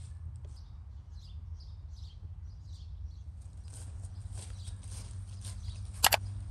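Footsteps rustling through grass and dry fallen leaves over a steady low rumble, with short high bird chirps in the first half. A single sharp snap about six seconds in is the loudest sound.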